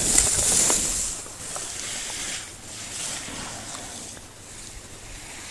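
Skis carving turns on groomed snow: a hissing swoosh with each turn, loudest as the skier passes close at the start and fading as the skier moves away.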